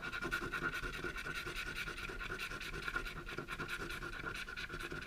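A coin scratching the foil off a scratch-off game card in quick, steady back-and-forth strokes, with a thin squeaky edge to the rasp.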